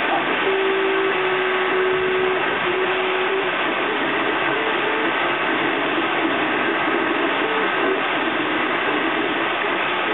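Desktop FDM 3D printer running a print: the stepper motors give held tones that jump in pitch as the print head changes moves, over a steady whir.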